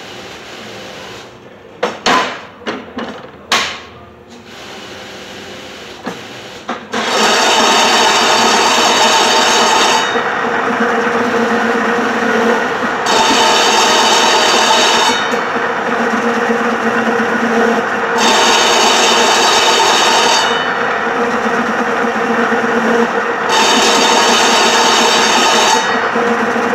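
Fabric bias-cutting machine: a few sharp knocks in the first four seconds, then about seven seconds in it starts running with a loud, steady mechanical hum. A higher-pitched layer comes and goes in spells of two to three seconds as it cuts.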